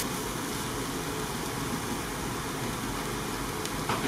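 Faint, steady hiss of onions, peppers and celery still sizzling on the residual heat in an Instant Pot's stainless steel inner pot after the sauté is switched off, with a silicone spatula stirring. There is a brief tap about four seconds in.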